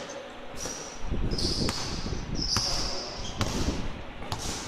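A basketball bouncing on a gym court during live play: several sharp thuds, mixed with a few short high squeaks.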